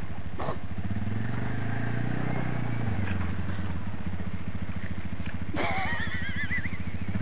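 Off-road vehicle's engine idling steadily with an even low rumble. About five and a half seconds in, a brief wavering high-pitched call sounds over it for about a second.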